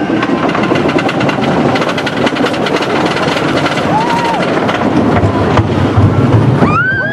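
Wooden roller coaster train rattling along the top of the lift hill with rapid clacking, then a heavier low rumble as it picks up speed into the first drop. Riders break into screams just before the end.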